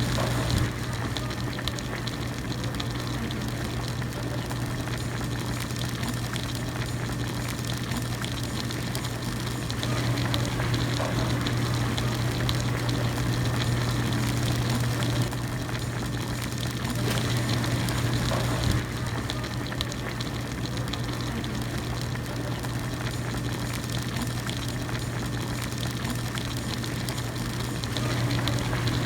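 Hot pot broth at a continuous rolling boil, bubbling steadily, over a steady low hum.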